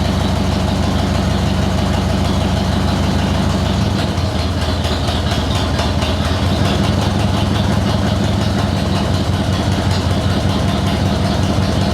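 Harley-Davidson FXDX Dyna's Evolution V-twin running at idle on full choke, its CV40 carburettor's enrichener pulled all the way out, just after start-up. The idle note changes about four seconds in.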